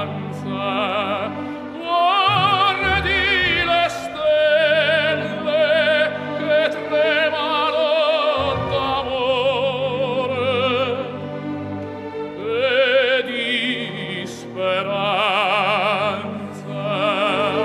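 Opera singing: a solo voice holding long notes with wide vibrato over an orchestral accompaniment.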